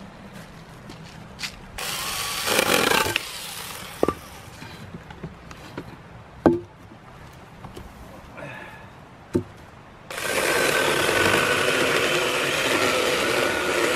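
Firewood being worked with a hand saw: a short stretch of rough sawing noise, three sharp wooden knocks as pieces are handled, then a steady rough rasping noise for the last few seconds.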